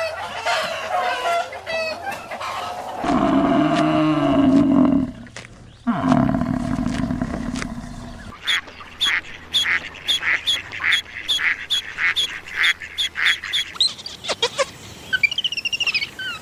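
Farm animals calling one after another: birdlike honking and quacking calls, a loud deep call a few seconds in, then a quick, even run of short repeated calls, about three a second.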